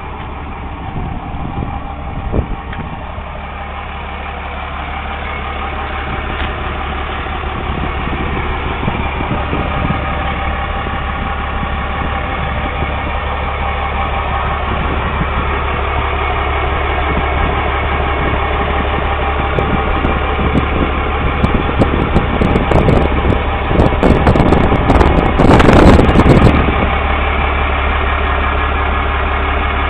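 Cummins diesel engine of a Dodge 3500 truck idling steadily, growing slowly louder, with a louder noisy surge lasting about two seconds near the end.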